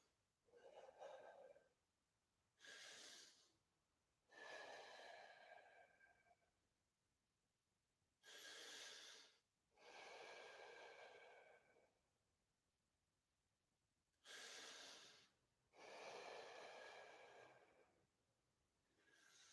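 A man taking three slow, deep breaths, faint, each a short rush of air followed by a longer one.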